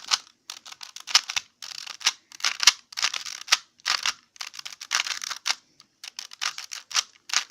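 Rubik's cube being turned rapidly by hand in a speed-solve attempt: the plastic layers click and rattle in quick bursts of turns.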